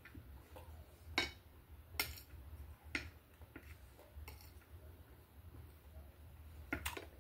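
Metal fork clinking and scraping on a plate while scooping up rice: several sharp clinks spaced roughly a second apart, over a low steady hum.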